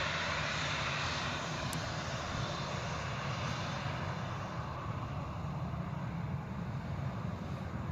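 Jet airliner engines rushing steadily, the higher part of the noise fading away after about four seconds while a low rumble goes on.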